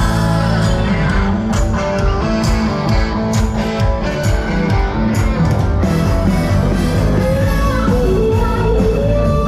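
A live rock-pop band playing loudly through the stage PA during a soundcheck, with bass, drums and guitars. A bending melodic line, a voice or lead guitar, comes in near the end.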